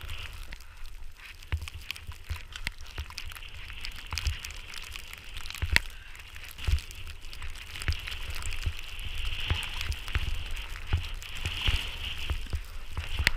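Snowboard riding through deep powder snow: a steady hiss of the board through the snow, with wind rumbling on the microphone and many small knocks and taps.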